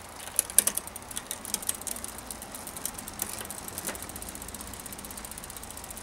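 Bicycle chain clicking and clattering across the rear cassette sprockets as the SRAM GX rear derailleur is pushed by hand, with the Shimano rear hub's freehub pawls ticking as the wheel coasts. The irregular clicks give way about two-thirds of the way through to a fast, even ticking.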